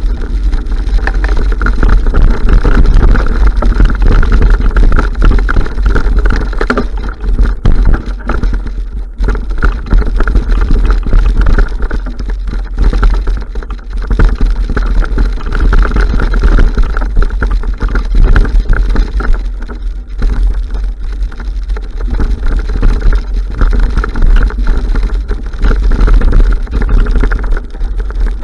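Wind buffeting the microphone of an action camera on a moving mountain bike, with a heavy low rumble and the uneven rattle of the bike rolling over a gravel track and then a rooty dirt trail.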